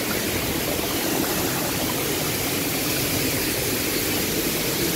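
Rushing water of a waterfall in heavy monsoon flow: a steady, even noise.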